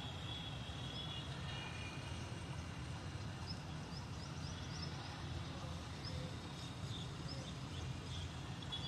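Lake-cleaning weed harvester boat's engine running with a steady low drone, with small birds chirping over it.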